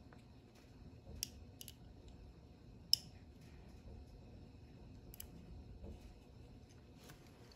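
Precision screwdriver turning a tiny screw in the base of a 1/64 diecast toy car: faint, with a handful of sharp little metallic clicks, the loudest about three seconds in.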